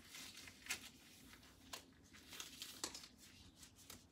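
Faint, irregular rustling and crinkling of hands and gloves handling cloth and tubing at a patient's IV site, with a couple of slightly sharper brushes.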